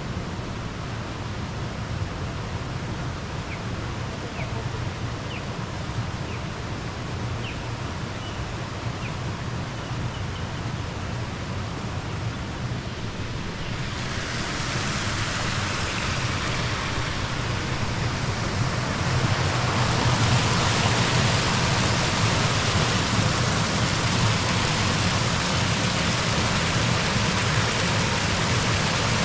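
Steady rush of flowing water over a low, even hum, swelling louder about halfway through. A few faint bird chirps in the first third.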